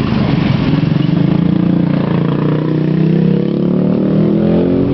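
A motor vehicle engine running close by, its pitch rising over the last two seconds as it revs up.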